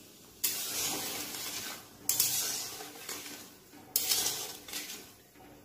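A spatula stirring raw mango wedges through hot sugar water in a metal kadai. There are three strokes about a second and a half apart, each starting suddenly and fading away.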